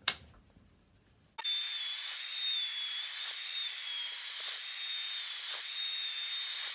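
A click, then about a second and a half in a compact router with a cove bit starts abruptly. It runs with a steady high whine and a loud cutting noise as the bit routs the cove along the board's edge for a rule joint.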